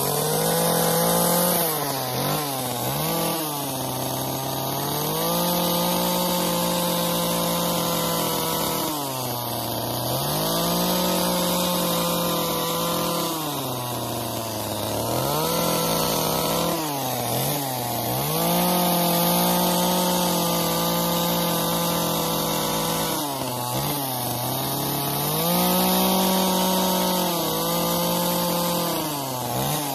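Small two-stroke carving chainsaw running at high revs while cutting into a wooden log. The engine speed dips several times and picks back up as the cut goes on.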